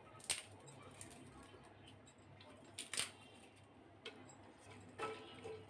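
Whole spices dropped by hand into an aluminium pot of oil, with two sharp clicks against the metal about three seconds apart and a few lighter taps, over a low steady hum.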